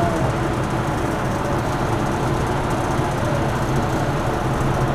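A docked ferry's engines idling: a steady low drone.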